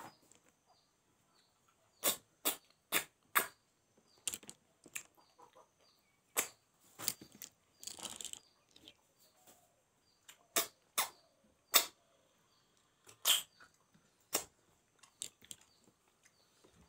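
Close-miked eating sounds: an irregular string of short, sharp, wet smacks and clicks from chewing food eaten by hand from a banana leaf.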